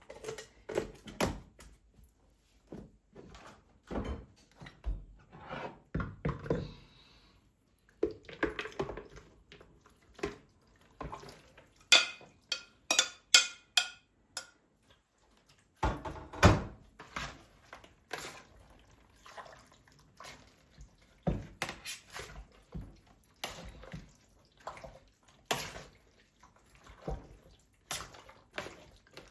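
Household handling sounds: scattered knocks, taps and clinks of objects being picked up and set down, with a quick run of ringing clinks about halfway through.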